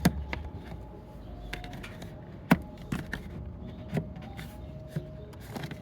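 Plastic clicks and knocks from the air filter housing cover and its clips being handled and worked loose, about half a dozen scattered sharp knocks, the loudest about halfway through, over a faint steady hum.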